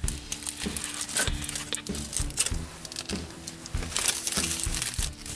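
Crinkling and rustling of a sandwich wrapper being handled, with irregular small clicks and crackles, over a faint steady low hum.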